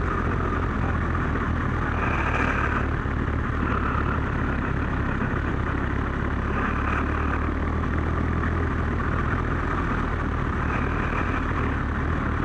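Kawasaki GPZ1100 motorcycle's inline-four engine running steadily on the move, with a steady rush of wind and road noise.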